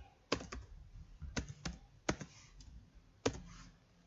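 Computer keyboard typing: several separate keystrokes at an uneven pace, with short pauses between them.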